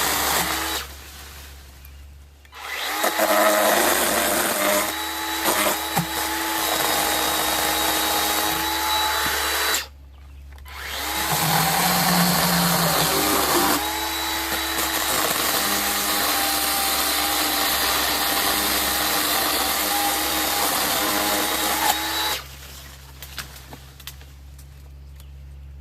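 Makita 18V battery chainsaw running at full speed with a steady electric motor whine and chain noise, in two long runs with a brief stop about ten seconds in, cutting off a few seconds before the end.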